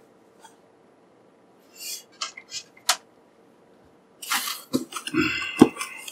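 Foam packaging sheets and plastic wrap rustling as they are handled: short bursts about two seconds in, a sharp click about three seconds in, then more continuous rustling near the end with a couple of knocks.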